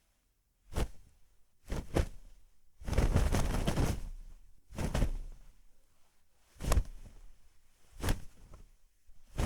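Cloth foley: clothing fabric swishing and rustling with arm movements, in about eight short separate swishes, one of them a longer rustle lasting about a second around three seconds in.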